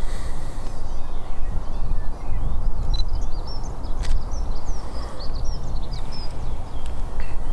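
Steady low wind rumble on the microphone, with small birds chirping and twittering in quick high notes through the middle. There are a couple of sharp clicks about three and four seconds in.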